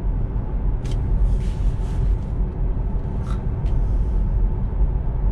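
Tyre and road noise heard inside the cabin of a moving Tesla Model 3 electric car: a steady low rumble, with a few faint ticks about a second in and again a little past halfway.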